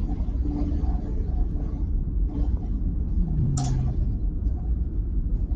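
Recorded lung auscultation of rhonchi: breath sounds through a stethoscope carrying low tones that slide down in pitch, lower than wheezes. Rhonchi are the sign of airways narrowed by secretions.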